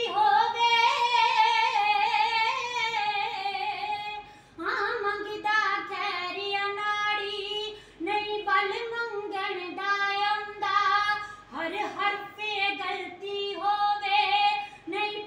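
A woman singing kavishri, Punjabi Sikh devotional verse, solo and without instruments, in a high voice. She sings long held, ornamented phrases with short breaths between them, about four phrases in all.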